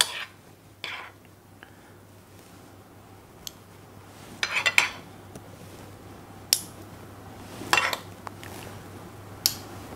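Metal spoon clinking and scraping against a non-stick frying pan and fluted tartlet tins as chunky apple compote is scooped out and spread into the pastry shells: a handful of separate clinks and short scrapes, a second or more apart.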